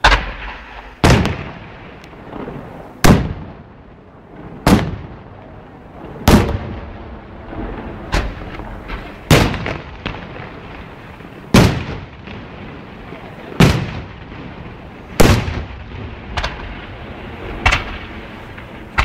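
Maltese festa fireworks going off in a string of about a dozen loud bangs, one every second or two, each followed by an echoing rumble; a few of the bangs are weaker.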